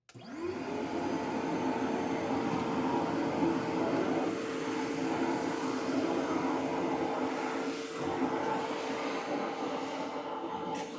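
DeWalt shop vacuum switched on, its motor whine rising over about half a second and then holding steady under the rush of air as it sucks up dust. The airflow sound dips briefly about four and eight seconds in.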